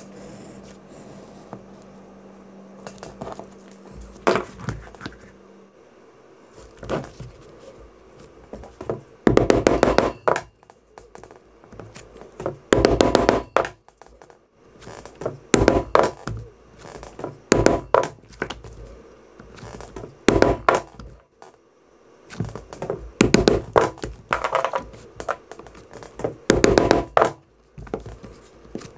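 Mallet blows in quick groups of several sharp strikes, a group every two to three seconds, typical of a leather worker driving a stitching chisel or punch through leather. Softer handling sounds come first.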